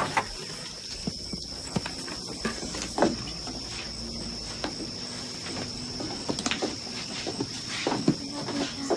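Steady high chirring of crickets, with scattered knocks, footsteps and handling noises on a wooden floor.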